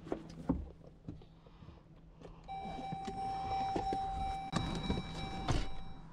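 A few light clicks and knocks, then a steady electronic buzzer tone that starts about two and a half seconds in, holds for about three seconds with a couple of sharp knocks over it, and cuts off just before the end.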